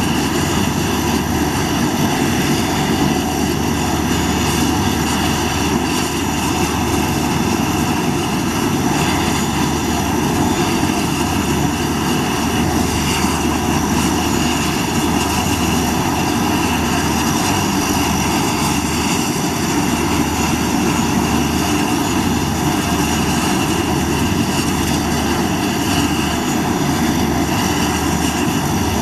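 Convair 580's Allison 501 turboprop engines running steadily on the ground with their propellers turning. There is a steady high whine over a low propeller drone, with no change in speed.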